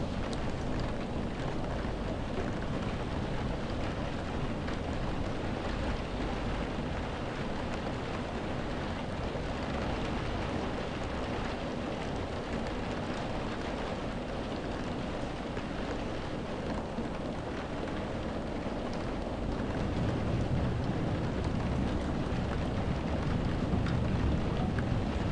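Heavy, wind-driven rain beating on window glass, heard from indoors as a steady dense patter. A deep low rumble swells in over the last few seconds.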